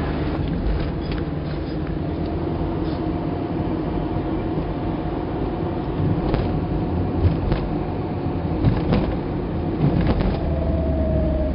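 Car cabin noise while driving: a steady low engine and road rumble, with a few short clicks and knocks in the second half and a faint whine coming in near the end.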